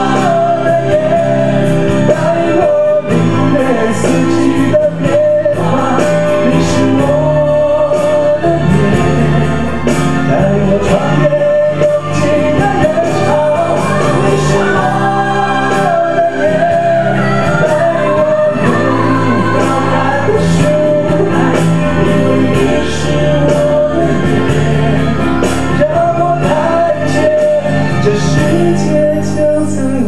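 A man singing a melody into a handheld stage microphone, over musical accompaniment with a recurring beat.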